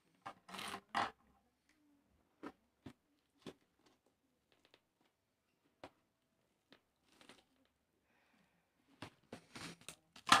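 Plastic packing tape and wrap on a cardboard parcel crackling as they are picked at and snipped with small scissors. The sounds come as scattered short crackles and ticks, busier near the end, where a sharp click is the loudest sound.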